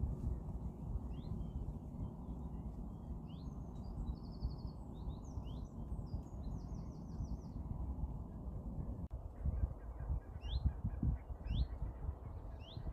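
Several songbirds chirping and trilling: short rising notes, two rapid trills near the middle, then a run of quick upward-sweeping calls in the last few seconds. All of it sits over a steady low rumble of wind on the microphone.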